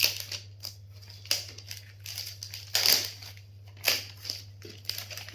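Laptop packaging being handled and unwrapped: irregular crinkling and rustling of wrapping material in several bursts, with a few sharp handling clicks.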